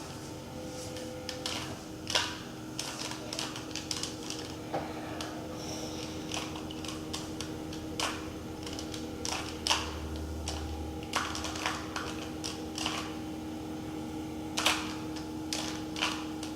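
2x2 Rubik's cube being turned through its final solving algorithm: irregular sharp plastic clicks as the layers are twisted and snap into place, over a steady low hum.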